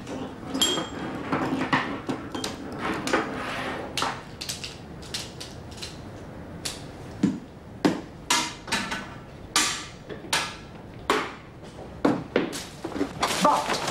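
A white cane tapping and knocking against the floor, furniture and a pinball machine: a string of sharp, irregular knocks, roughly one every half second to second.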